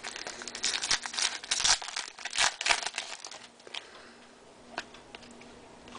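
Crinkling of a trading-card pack wrapper as cards and packs are handled: a dense run of crackles for about three seconds, then only scattered ones.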